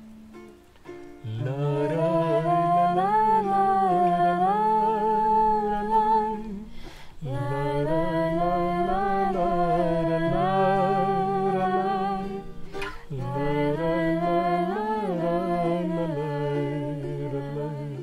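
A woman singing long, wavering held notes over an acoustic guitar strumming chords, in three long phrases with short breaths between them. The guitar plays alone for about the first second before the voice comes in.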